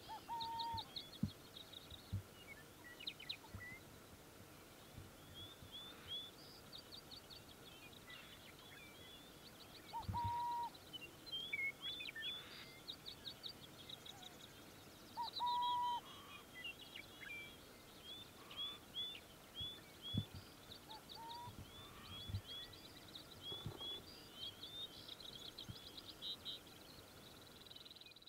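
Several songbirds trilling and chirping high up almost without pause, with a short, lower, steady note four times, the loudest two about ten and fifteen seconds in: burrowing owls calling.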